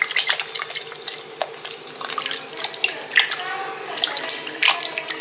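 Water sloshing and splashing in a steel pot as a hand rubs salted dried fish to wash the salt off, with small irregular splashes throughout.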